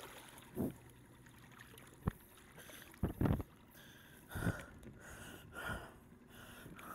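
Scattered knocks and splashes at the side of a kayak as a freshly gaffed halibut is held in the water alongside, the loudest about three seconds in.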